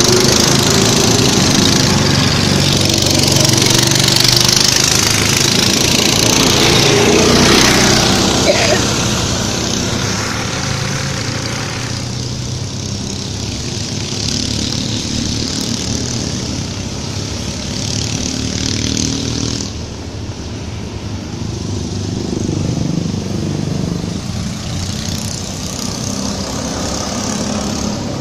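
Go-kart engines running as karts lap the track. The engine note rises and falls and is loudest for the first several seconds as a kart passes close by, then settles to a quieter, more distant drone.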